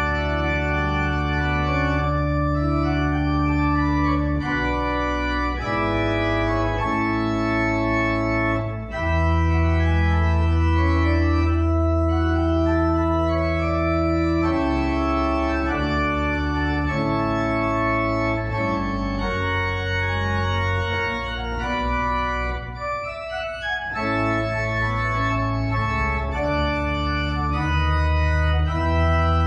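Electronic organ played with slow, sustained chords over held bass notes, the chords changing every second or two.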